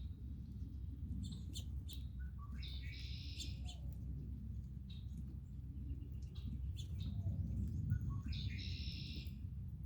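Songbirds singing: scattered short chirps, and a dense buzzy phrase of song heard twice, about five seconds apart, over a low steady rumble.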